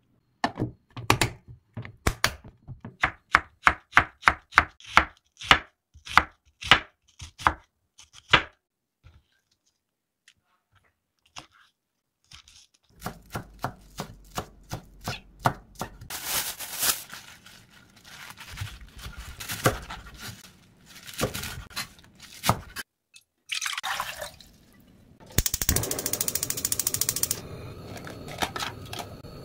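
Chef's knife chopping green onions on a wooden cutting board: an even run of sharp strikes, about two to three a second, then after a pause more chopping over a noisier background. Near the end a loud rushing noise lasts about two seconds, followed by a steady hiss.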